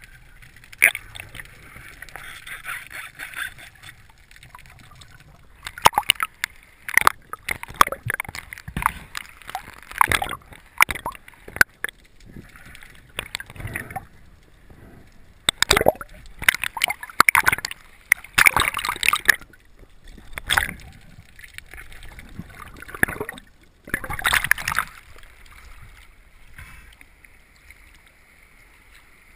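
Underwater spearfishing sounds: irregular knocks, clicks and scrapes as the speargun and its shooting line are handled and hauled in, with bubbles gurgling in the water.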